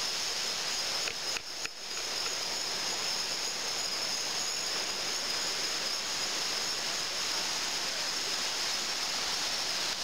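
Steady rushing hiss of flowing creek water, with a thin, steady high-pitched tone over it; the sound dips briefly about one and a half seconds in.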